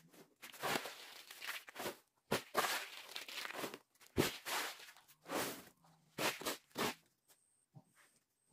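Woven polypropylene sack rustling and crinkling in irregular bursts as it is handled and held open.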